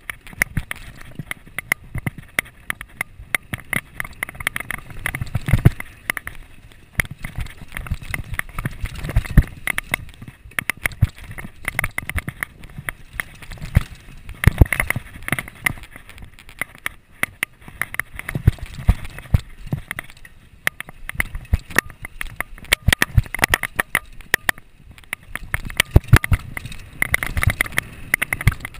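Downhill mountain bike clattering down a rough dirt trail: a constant irregular run of sharp knocks and rattles from the bike over bumps, over a low rumble.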